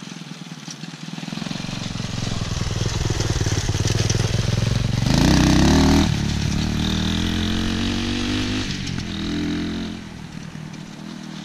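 200cc dirt bike engine being ridden past: it grows louder and changes pitch with the throttle, is loudest with a short burst of revs about five seconds in, then fades away.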